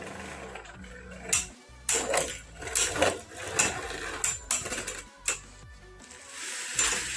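Two Beyblade Burst spinning tops battling in a plastic stadium: a series of sharp clashes, about eight hits over a few seconds, as the tops strike each other, with a rattling spin near the end.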